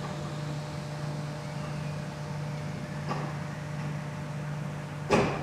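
Steady low mechanical hum, like a ventilation fan or motor. A faint knock comes about three seconds in, and a short loud thump comes near the end.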